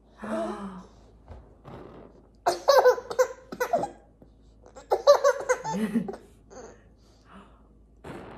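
A baby belly-laughing in bursts: a short one at the start, then two loud fits of laughter, about two and a half and five seconds in, trailing off into smaller giggles.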